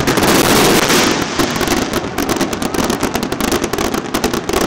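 Aerial fireworks bursting and crackling: a dense run of rapid, overlapping sharp pops and cracks over a rumbling wash, loudest in the first second.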